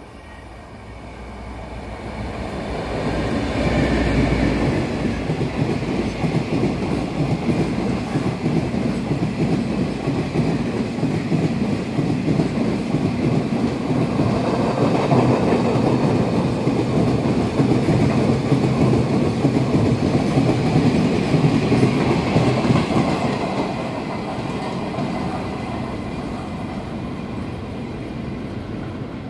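Long freight train of military flatcars hauled by a Taiwan Railways R152 diesel locomotive, passing over a bridge. It swells over the first few seconds with a deep rumble as the locomotive arrives. Then comes a long steady run of wagon wheels clattering over the rail joints (fishplates), easing off a little near the end.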